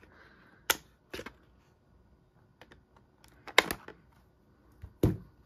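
Scissors snipping through a toy's cardboard and plastic packaging: a handful of sharp clicks spaced a second or more apart, the loudest a pair about three and a half seconds in.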